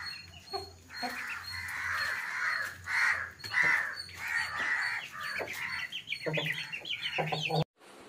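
Chickens clucking in a run of short calls, with two deeper clucks near the end; the sound cuts off suddenly just before the end.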